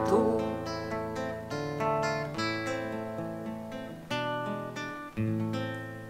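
Acoustic guitar playing an instrumental break between verses of a song: a run of plucked notes over changing bass notes, growing quieter near the end.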